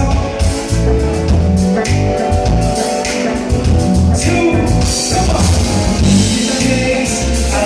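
Live band playing an instrumental passage: drum kit keeping a steady beat under heavy bass notes and guitar.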